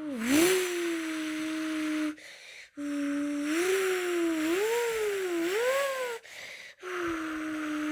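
A person imitating a Lexus LFA engine with his mouth, making a buzzing hum. It starts with a quick dip and recovery in pitch, like a startup, then holds a steady idle note. After a short break it holds the idle again, then rises and falls three times in climbing revs. After a second short break it goes back to the steady idle note near the end.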